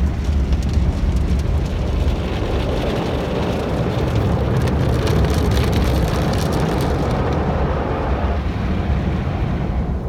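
Automatic car wash heard from inside the car: water spraying and pattering on the car's body and windows over a steady low rumble. The high spray hiss thins out about seven to eight seconds in.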